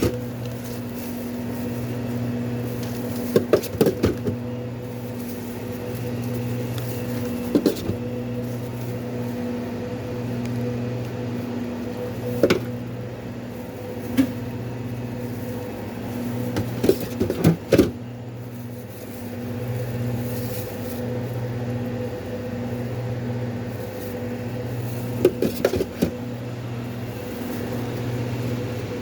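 Steady electrical hum of a kitchen appliance, wavering in strength, with scattered short clicks and clatters of things being handled.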